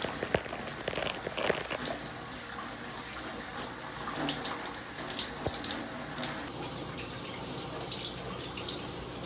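Shower running, water spattering and splashing irregularly. The splashes die down after about six seconds, leaving a steady spray.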